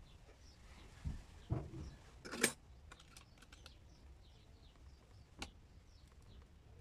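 A few light clicks and knocks from fitting a CPU into an AM5 motherboard socket. The loudest is a sharp click about two and a half seconds in, with another about five and a half seconds in.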